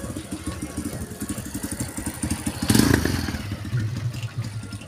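Small motorcycle engine running with a fast, even beat, and a brief loud rush of noise a little under three seconds in.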